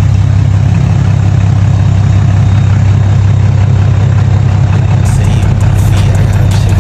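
Cummins 6.7-litre inline-six turbo-diesel engine of a truck running steadily with a deep, even hum. A run of clicks joins about five seconds in.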